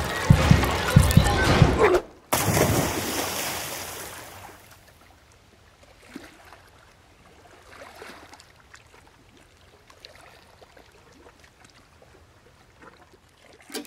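A loud rush of water about two seconds in that fades away over a couple of seconds, then faint water lapping around a drifting canoe.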